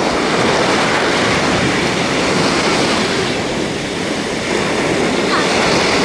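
Sea waves washing onto a sandy beach, a continuous rushing noise that eases slightly and builds again about five seconds in.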